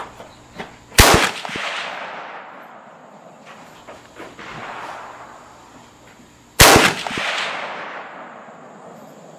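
Two rifle shots from a Ruger American bolt-action rifle in .30-06 Springfield, about five and a half seconds apart, each trailing off in a long echo. Faint clicks come between them.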